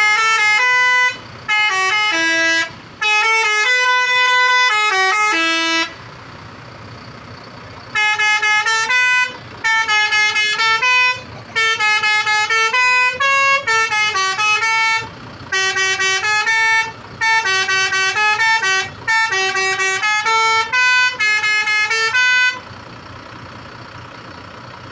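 Telolet horn, a multi-trumpet musical air horn, playing a quick, jaunty tune of changing notes. It plays one phrase for about six seconds, then after a short pause a longer run of phrases with brief breaks, stopping near the end.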